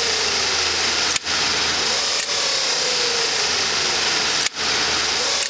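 Electric motor revved under a motor controller, running with a steady whir and hiss while a whine slides down in pitch twice. The sound drops out briefly three times.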